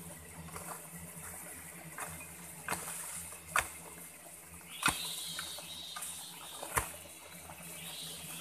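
A hoe chopping into soil and leaf litter: repeated sharp strikes with scraping and crumbling earth between them, the loudest three blows landing about three and a half, five and seven seconds in.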